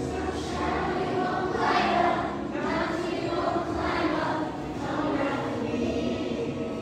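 A roomful of schoolchildren singing together with some adults: a group song or hymn.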